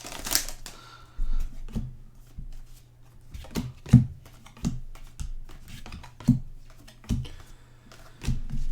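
Trading cards being flipped through quickly by hand: a run of irregular light clicks and taps, some with a soft low knock, about one or two a second.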